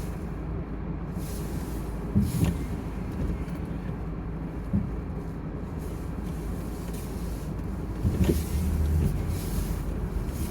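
Car driving through snow: steady low engine and road rumble heard from inside the cabin, with a few short knocks and a louder swell about eight seconds in.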